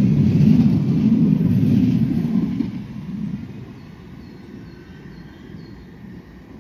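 A vehicle's low rumble, loud at first, fading away about two and a half seconds in as it passes off. A few faint, short high chirps follow in the quieter background.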